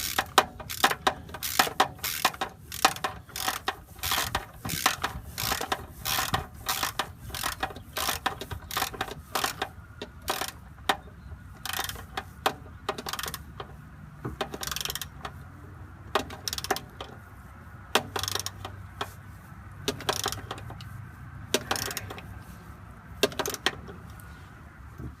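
Hand socket ratchet clicking in repeated strokes while tightening bolts, the clicks coming quickly at first and more spaced out with short pauses later on.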